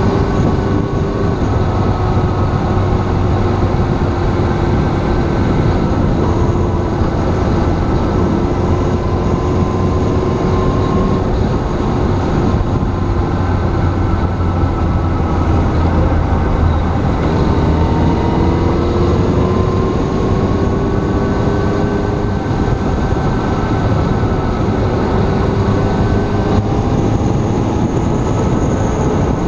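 Motorcycle engine running at steady road speed under loud wind rush, its pitch drifting gently up and down as the revs change.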